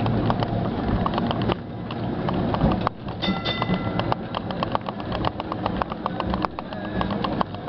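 Heritage street tram running, heard from on board: a steady low motor hum with constant rattling and clicking of the car. A short ringing tone sounds about three seconds in.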